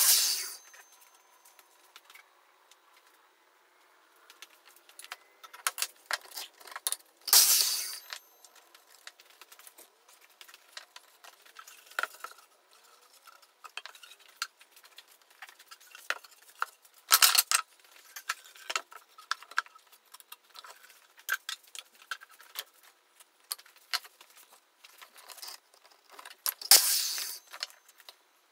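Fast-forwarded workshop sounds: many quick clicks and clatters of wood and tools, with four short loud bursts. The first burst comes as a mitre saw blade cuts through a wooden board.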